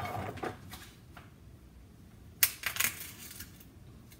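Kitchen items handled on a countertop while seasonings and a vinegar bottle are set out: a few small clicks and knocks, the sharpest about two and a half seconds in.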